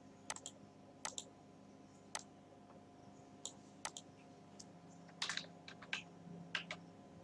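Faint computer mouse clicks, a few single clicks spread over the first seconds, then a short run of keyboard typing about five seconds in, over a faint steady hum.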